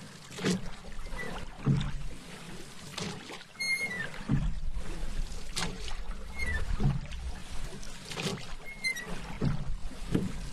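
Paddle strokes in lake water: a steady rhythm of blade swishes and splashes, about one stroke every second and a bit, with water moving along the hull between strokes.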